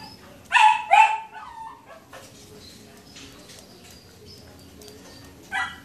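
A dog barks twice in quick succession about half a second in, then gives one shorter bark near the end.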